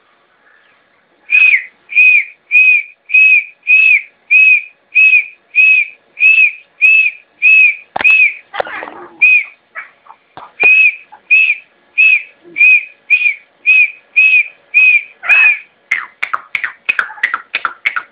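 A pet grey francolin (teetar) calling: a loud, ringing whistled note repeated steadily about every 0.6 s, breaking off briefly with a thump and rustle about eight seconds in. Near the end it quickens into a rapid run of shorter notes.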